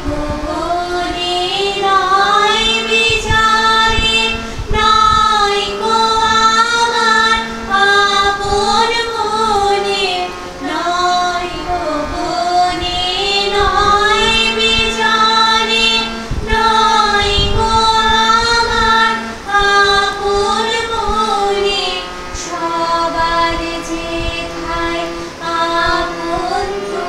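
Background music: a female voice sings a slow melody of long, held notes that glide between pitches, over a steady low drone note that sounds in some stretches.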